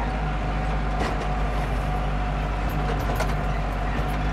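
Landini Blizzard tractor's diesel engine running steadily under load, heard from inside the cab, with a few light clicks or rattles about one and three seconds in.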